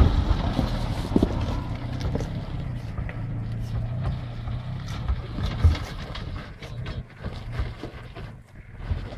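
Suzuki Samurai 4x4's engine running at low revs as it crawls down a rock slab, with a few sharp knocks from the tyres and chassis on the stone. The engine grows fainter near the end.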